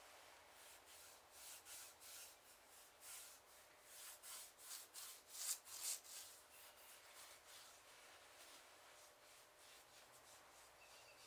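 Faint repeated hand-rubbing strokes across a leather book cover, about two a second, loudest around the middle and thinning out near the end.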